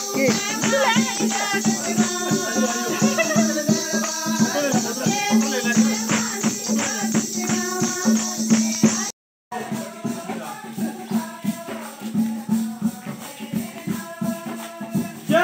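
Hindi devotional bhajan to Ram, with singing over a steady drone and shaken rattle-like percussion. The sound drops out for a moment about nine seconds in, then the music carries on a little quieter.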